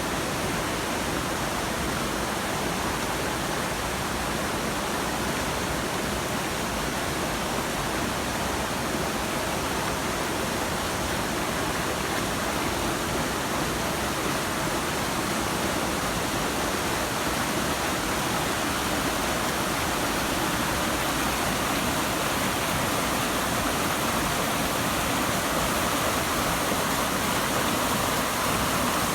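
Waterfall rushing: a steady, unbroken roar of falling water that grows a little louder in the last ten seconds.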